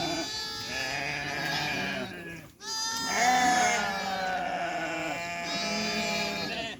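A flock of sheep bleating, many calls overlapping one another, with a short break about two and a half seconds in.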